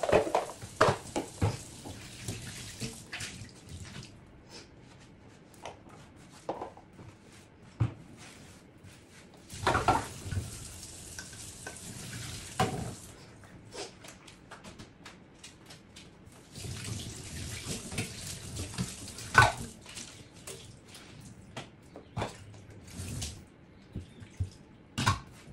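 Kitchen tap running into a stainless steel sink, turned on and off in several stretches, while the basin is scrubbed with a sponge and wiped with a cloth, with scattered sharp knocks and clatters against the steel.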